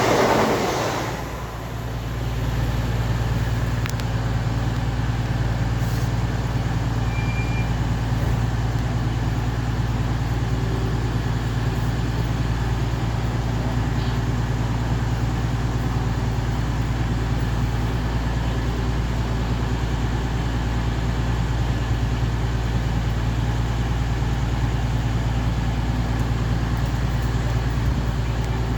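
Diesel multiple unit engines idling steadily: a constant low drone that holds its pitch throughout.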